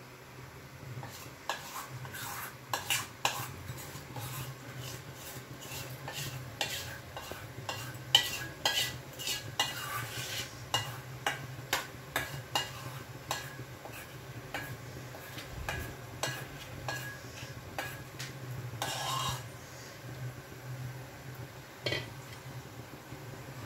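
Metal spoon scraping and tapping against a steel bowl and pan while pouring and spreading dhokla batter, with irregular sharp clicks a few times a second. A steady low hum runs underneath.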